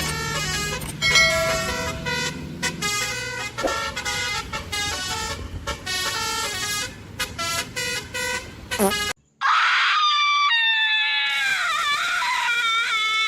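Upbeat music with many layered tones that cuts off about nine seconds in. After a short silence comes a loud multi-tone horn, like a telolet bus horn, whose pitch sags and wobbles as it sounds.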